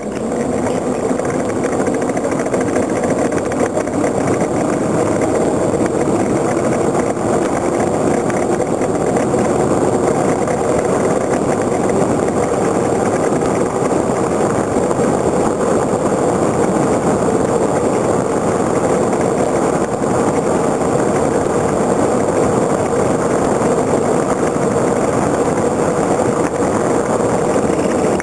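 Steady roar of a wooden soapbox cart's wheels rolling fast over asphalt during a downhill run, heard from a camera mounted on the cart itself.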